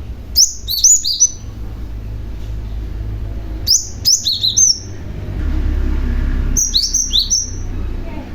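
Young cinereous tit singing: three short phrases about three seconds apart, each a quick run of sharp, high whistled notes that drop in pitch. A steady low hum runs underneath.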